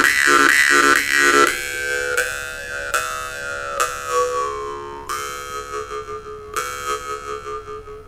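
Homatov 'Wolf Fang' khomus (Yakut jaw harp) being played: fast rhythmic plucking for about the first second and a half, then a handful of single plucks, each left to ring over the drone with overtones sliding in pitch. The playing grows quieter and fades out near the end.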